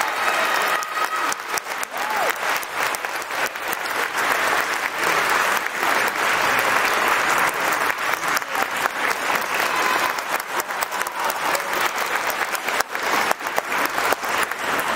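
Audience applauding steadily, with a voice calling out briefly at the start.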